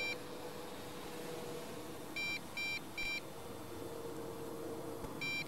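An electronic beeper sounding short, high beeps in groups of three, the groups repeating about every three seconds, over a faint steady hum.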